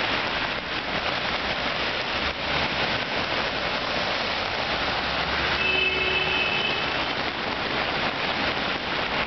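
Rain falling and cars driving through deep standing water on a flooded road, tyres swishing and splashing, with a car's engine rumble passing close in the middle. A brief high tone sounds about six seconds in.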